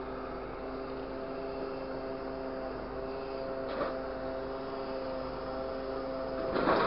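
Grapple truck running, heard from the operator's seat: a steady hum of several tones. A brief knock comes about four seconds in, and a louder rattle starts just before the end.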